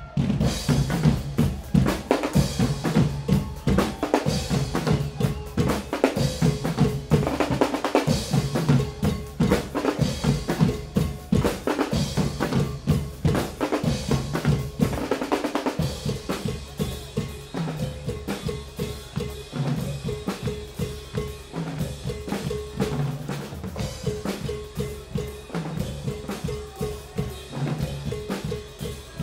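Guggenmusik band's percussion section playing a fast, driving beat: drum kit, snare drums and large bass drums hitting together in a steady rhythm.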